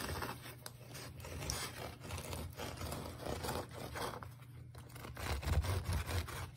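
A knife sawing back and forth through the crust and crumb of a freshly baked ciabatta loaf, a run of repeated rasping strokes.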